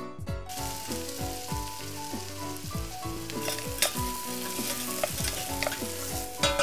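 Diced red onion frying in a stainless steel pot: a steady sizzle that starts about half a second in, stirred with a wooden spoon that clicks against the pot a few times. Background piano music plays under it.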